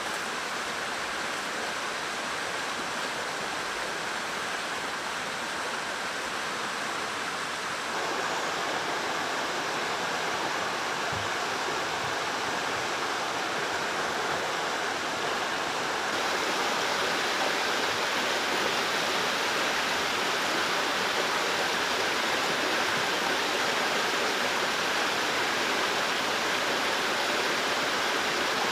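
Rocky mountain stream rushing over stones, a steady rush of water that grows louder in two steps, about a third of the way in and again just past halfway.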